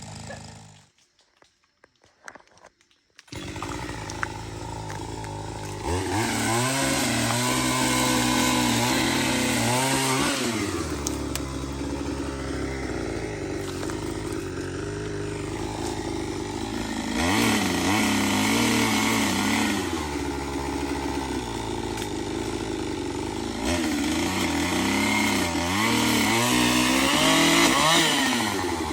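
Chainsaw running while limbs are cut from a felled tree, revved up several times and dropping back in pitch between cuts. There is a short silence about a second in.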